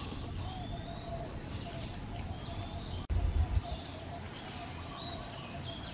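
Wild birds singing: high whistled phrases over a steady run of short, repeated lower calls, with a low background hum. A sharp click and a brief low rumble about three seconds in.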